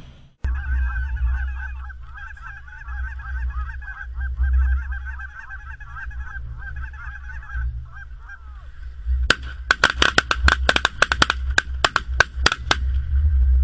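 A large flock of snow geese calling and honking together. About nine seconds in, a rapid volley of shotgun fire breaks out, some twenty shots from several guns in under four seconds, while the geese keep calling.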